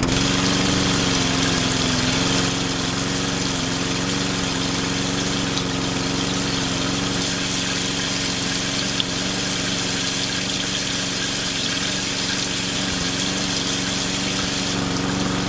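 Small motor running steadily at one constant speed, a level hum with mechanical noise over it.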